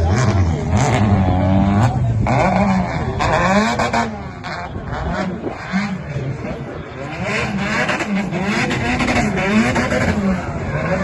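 Drift car engine revving hard and dropping back over and over, about once a second, on and off the throttle through a run, with tyre and spray noise underneath.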